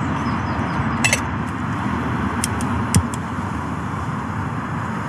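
Light metallic clinks of a titanium pot lid being handled and set on the pot: one about a second in, then a quick cluster of ticks around three seconds in. Under them is a steady rushing noise of motorway traffic.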